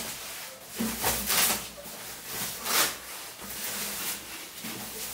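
Thin protective bag rustling and crinkling as a guitar is slid out of it by hand, in several uneven surges, the loudest about a second in and again near the middle.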